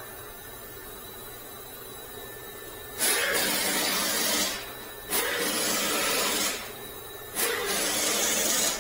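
Three loud bursts of hissing, each about a second and a half long, starting suddenly about three, five and seven and a half seconds in.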